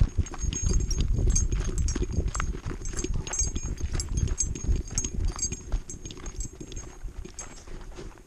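Handling noise from a camera mounted on a walking dog: its quick footfalls on a dirt trail, with the mount rubbing and bumping and light metallic clinks from the collar. The noise eases off in the last couple of seconds as the dog slows.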